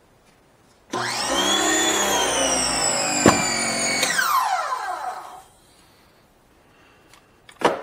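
Small electric pressure washer motor starting up suddenly, running for about three seconds with a click midway, then shutting off and spinning down with a falling pitch. A short, sharp sound near the end.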